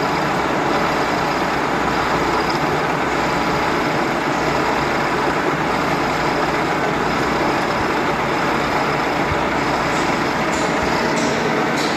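Milling machine running steadily during side milling, with a faint high whine over the noise. A few short clicks near the end.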